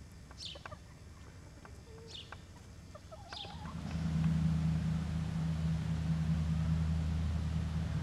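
Hens giving a few short, high calls that fall in pitch, with faint clicks from the camera. About four seconds in a steady low hum starts and covers everything else.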